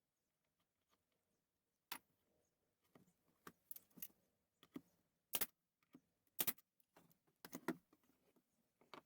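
Scattered clicks, clinks and knocks of small parts and tools being handled at a workbench while the shelf is assembled, with two sharper knocks around the middle.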